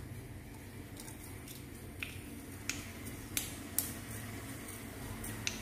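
Mustard seeds in hot oil in a pan, giving a few scattered sharp pops as they begin to splutter, over a faint steady hum.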